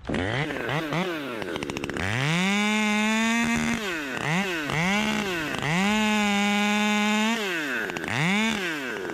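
Top-handle two-stroke chainsaw starting abruptly and being revved repeatedly: several short throttle blips and two steady full-throttle runs of about two seconds each, dropping back between them.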